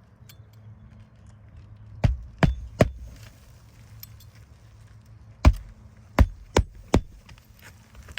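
Hammer driving roofing nails through a replacement 3-tab shingle: three quick strikes about two seconds in, then after a pause four more.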